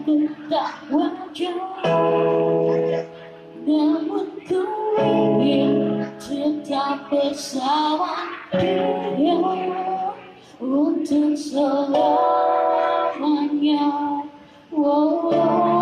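A woman singing a ballad with long held notes and gliding pitch over sustained electronic keyboard chords, in phrases separated by short breaths.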